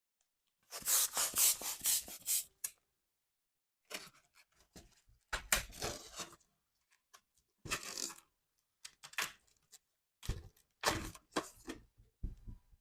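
Latex balloon rubber being handled, stretched and twisted by hand: spells of crackly, rubbery rubbing and squeaking, each up to about two seconds long, with short silent gaps between.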